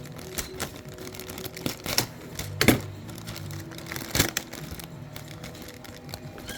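Plastic model-kit parts and their bags being handled: a run of light clicks and rustles, with two sharper knocks about two and a half and four seconds in.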